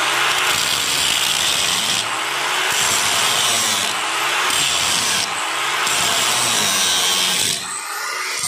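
Angle grinder running under load, its disc cutting into an iron door frame with a loud, steady grinding. The motor's pitch wavers as it cuts, and the sound eases a little near the end.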